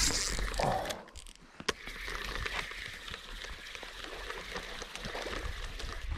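A spinning rod cast, with a loud rush of noise in the first second, a sharp click about two seconds in, then the spinning reel's handle cranked steadily to retrieve the line.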